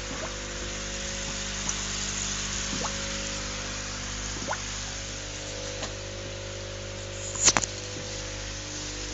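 Aquarium air pump humming steadily while its bubbles fizz and pop at the water, with scattered small ticks and a brief cluster of sharp knocks about seven and a half seconds in.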